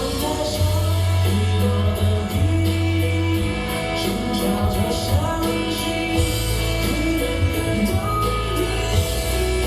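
Music with singing over a steady bass beat, played over a hall's sound system for a dance performance.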